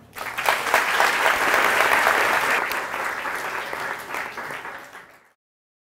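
Audience applauding at the end of a lecture, fading and then cutting off abruptly about five seconds in.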